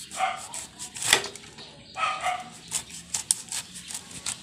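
Kitchen knife slicing the spiky rind off a breadfruit and knocking on a wooden chopping block: a loud knock about a second in, then several lighter clicks and taps. Two short high-pitched cries come near the start and again about two seconds in.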